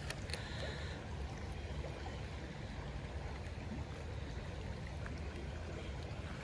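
Shallow creek water flowing steadily, a continuous rushing with a low rumble underneath.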